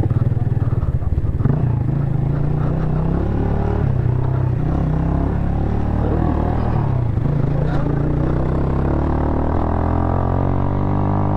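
Motorcycle engine running steadily at cruising speed, its pitch holding level throughout.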